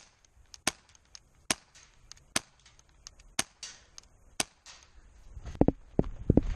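Airsoft guns firing single shots, sharp snaps about once a second. Near the end comes a quick cluster of louder knocks.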